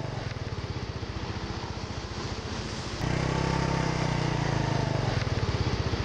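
Motorbike engine running steadily while riding, with wind noise on the microphone. It gets louder about three seconds in.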